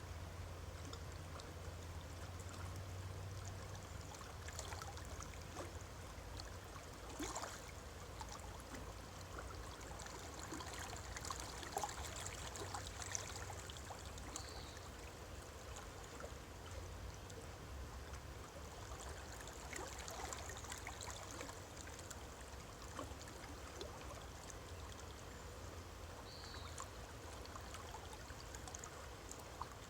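Running water, a steady rush with small splashes and trickles scattered through it.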